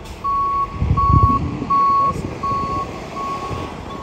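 Rear-loader garbage truck's reversing alarm beeping at a steady rate, about one beep every three-quarters of a second, with a low rumble underneath that is loudest about a second in.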